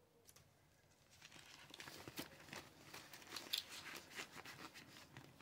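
Faint rustling and crinkling of paper money and cash envelopes being handled, starting about a second in.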